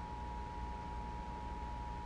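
Emergency Alert System two-tone attention signal: two steady pitches just under 1 kHz (the 853 and 960 Hz pair) sounding together without a break, heralding an incoming emergency alert message.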